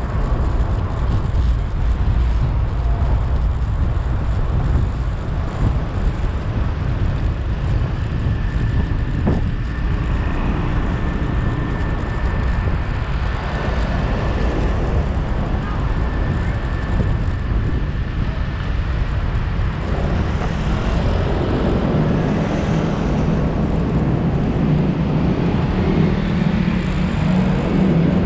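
Steady road and engine noise of a vehicle driving through city traffic. A thin high whine runs through the middle stretch, and a deeper engine drone swells in the last several seconds.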